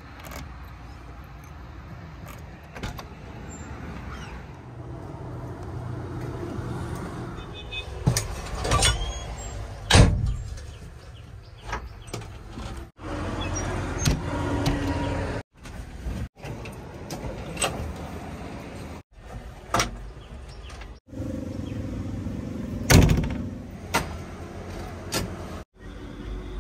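Clicks and knocks from the cab door of a JCB 3DX backhoe loader as it is unlocked with a key and opened, and the key is put into the ignition. The clicks and knocks come over a steady background hum and are loudest about a third of the way in and again near the end. The sound drops out to silence briefly several times.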